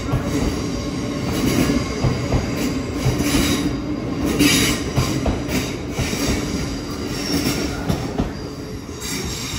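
Two coupled GWR Class 800 trainsets pulling out and passing close by: a steady rumble of wheels on rail, with a sharp clack every second or so. The sound eases off near the end as the last carriage goes past.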